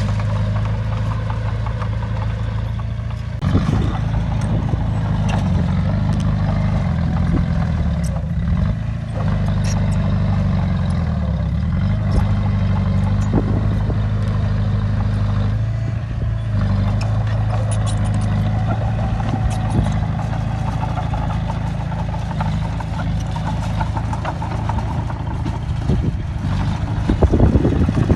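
Heavy diesel engine of a bulldozer working. The engine note sags and picks up again as the load changes, with occasional metallic clanks.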